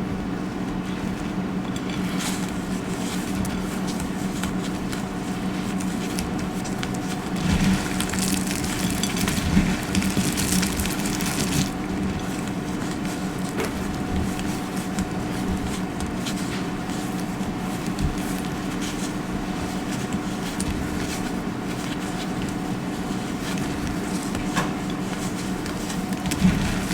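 Dry soap crunching and crackling as it is crushed, with a dense stretch of crunching about a third of the way through and a few single crackles near the end, over a steady low hum.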